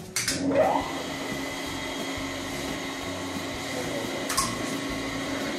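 Three-phase induction motor on a star-delta contactor panel starting: a sharp contactor click, a short rising whine as the motor spins up, then a steady running hum. A second sharp click comes about four seconds later.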